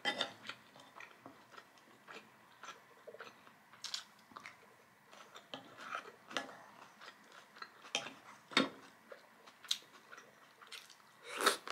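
Close-miked chewing and wet mouth sounds of someone eating rice and grape tomato salad: irregular clicks and smacks, with a louder smack near the end.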